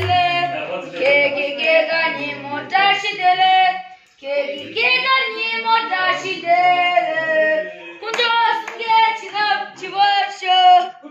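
Unaccompanied voices singing, with a short break about four seconds in.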